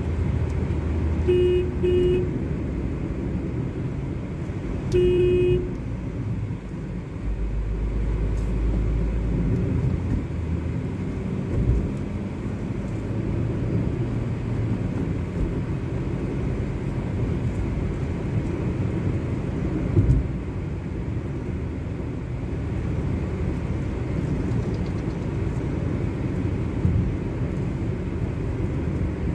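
Steady engine and road noise inside a moving car's cabin, with a car horn tooting twice briefly about a second in and once more, a little longer, about five seconds in.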